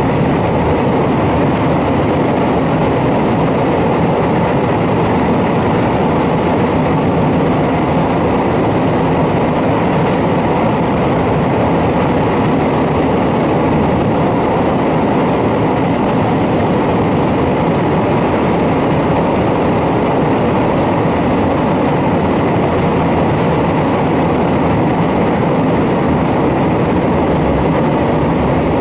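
Kobe Electric Railway electric train climbing a steep grade, heard from inside the car: loud, steady running noise of the traction motors under load and the wheels on the rails, echoing off the close walls of a tunnel.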